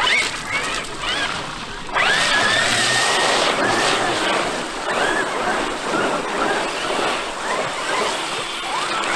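Traxxas X-Maxx RC monster truck's brushless electric motor whining as it is driven, the pitch rising and falling with the throttle over a steady rushing noise. It jumps louder with a sharp rising whine about two seconds in.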